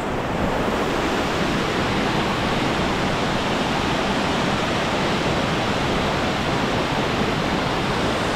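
Waterfall pouring down a rock face into a rocky mountain stream: a steady, even rush of water.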